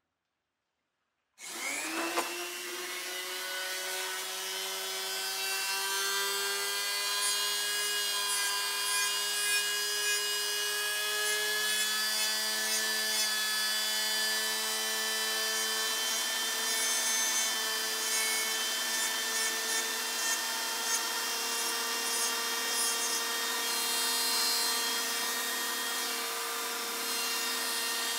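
Small rotary tool with a little abrasive disc starts about a second in, winds up to speed and then runs with a steady whine. The disc rubs the paint off the raised numerals of a cast aluminium dial to expose the bare aluminium.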